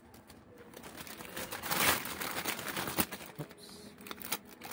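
Paper and a clear plastic bag crinkling and rustling as they are handled, loudest about two seconds in, with a few light clicks later on.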